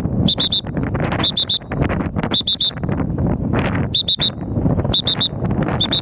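Wind buffeting the microphone, with a high-pitched triple beep repeating about once a second, six times in all.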